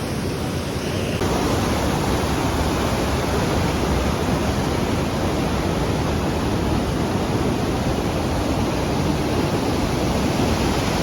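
Fast river water rushing steadily, a constant roar of running water with no break.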